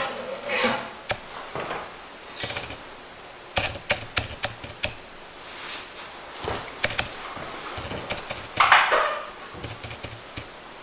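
Metal clicks, knocks and scraping as the motorcycle fork is worked apart by hand, with a quick run of sharp clicks a few seconds in and a louder scraping rattle near the end.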